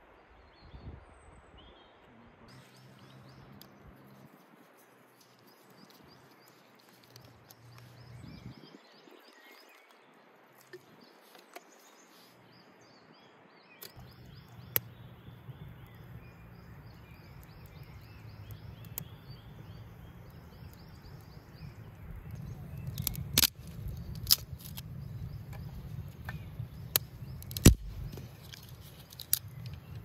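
Outdoor ambience with birds chirping. About halfway through a low rumble comes in and continues, and near the end there are a few sharp clicks, one louder than the rest.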